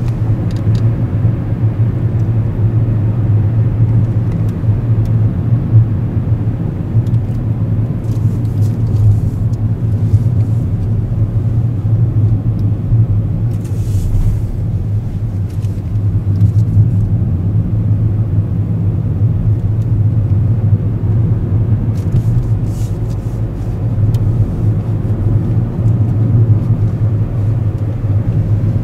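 A car driving on the road: a steady low drone of engine and road noise.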